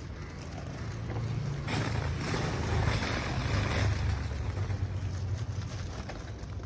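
A motor vehicle passing close by: a low engine rumble that swells to its loudest around the middle, with a hiss on top, then fades.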